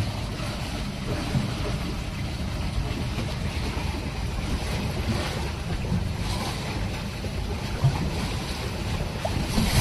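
Steady wind noise on the microphone with water washing past the hull of a catamaran under way on quiet electric motors, with no engine sound.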